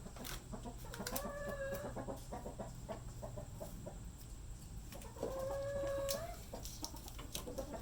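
Chickens clucking, with two drawn-out hen calls, one about a second in and another about five seconds in, over scattered light clicks and taps.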